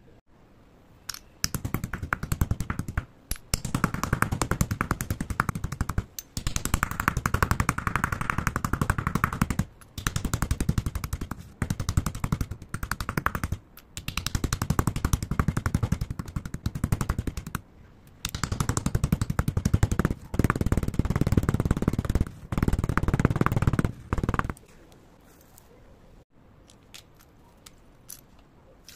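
Chalk being crushed and ground with a stone pestle in a stone mortar: dense, rapid crunching in bursts of a few seconds with short pauses between them. After about 24 seconds it goes much quieter, with a few light clicks of chalk pieces dropped into the mortar.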